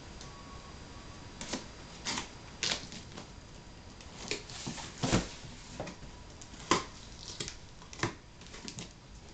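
Utility knife slitting the packing tape on a cardboard shipping box, giving irregular sharp scrapes and crackles of tape and cardboard; near the end the cardboard flaps are pulled apart.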